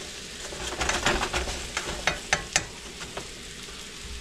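Chicken frying in melted butter in a pan, sizzling steadily, with a utensil clicking and scraping against the pan several times from about a second in until about three seconds in.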